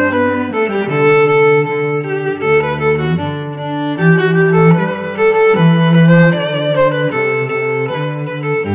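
Background music on bowed string instruments: a violin-like melody moving over held low notes.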